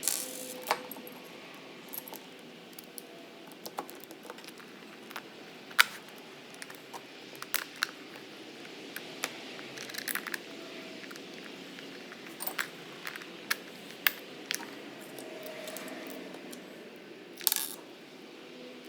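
Irregular metallic clinks and taps of small hardware and metal parts being handled and fitted while a weed wiper's steel bracket and manifold are put together and tightened.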